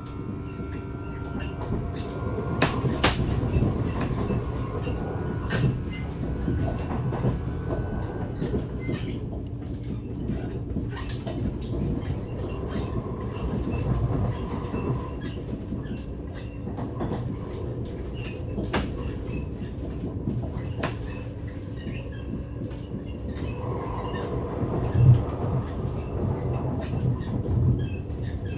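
NS ICNG electric intercity train running on the track: a steady rumble with faint hum, scattered sharp clicks and an occasional louder knock from the wheels and running gear.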